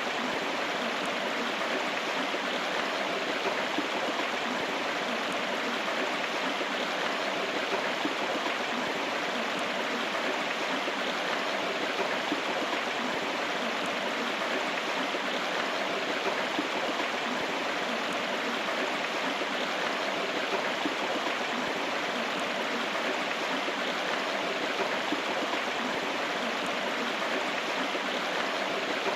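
River water flowing, a steady rushing babble with no breaks.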